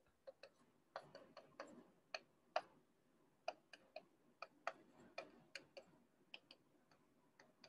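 Pen tip tapping and clicking against an interactive whiteboard screen while short labels are written: about twenty faint, sharp clicks at irregular intervals.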